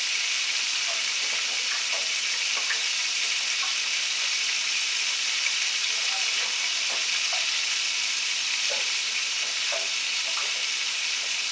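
Butter melting in hot vegetable shortening in a pan: a steady frying sizzle, with a few faint knocks.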